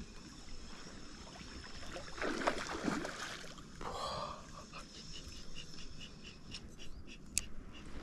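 Small spinning reel being wound, ticking about four times a second in the second half, after a short rough rushing noise about two to three seconds in.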